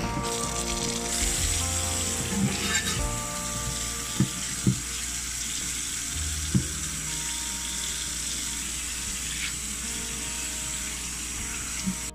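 Tap water running onto a wooden cutting board in a stainless steel sink while it is scrubbed with a sponge, a steady hiss that cuts off suddenly at the end. A few dull knocks come about four, four and a half and six and a half seconds in. Soft music plays underneath.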